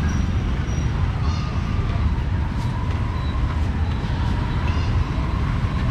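Busy outdoor market street ambience: people's voices and motor traffic over a steady low rumble. A thin steady whine comes in about two seconds in.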